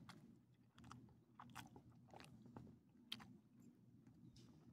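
A small dog licking and chewing food close to the microphone: faint, irregular wet clicks and smacks.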